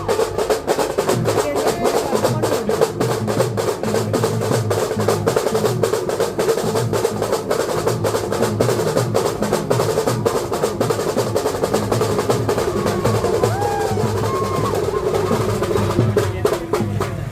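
Live band playing timli dance music: fast, dense drumming over a steady melodic line and a pulsing bass.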